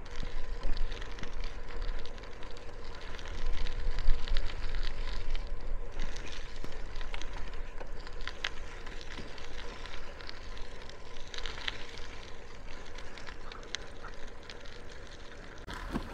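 Riding a bicycle, heard from a camera on the bike: steady wind rumble on the microphone with a faint steady hum, and scattered sharp clicks and rattles throughout.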